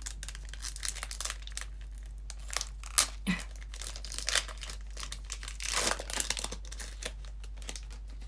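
Foil Pokémon booster pack wrapper crinkling and being torn open, a run of short crackles with a sharp loud one about three seconds in and a longer rip near six seconds.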